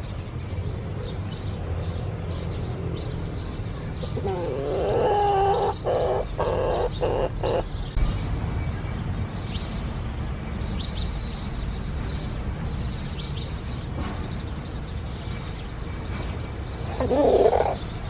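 Birds chirping on and off over a steady low rumble, with short high chirps scattered throughout. About four seconds in, a louder, lower call lasts about three seconds and breaks into short pulses at the end, and a brief loud call comes near the end.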